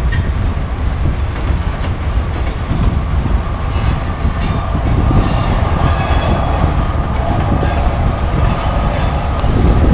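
A freight train's cars rolling past on the rails: a steady, heavy rumble of wheels on track, with faint high wheel squeals around the middle.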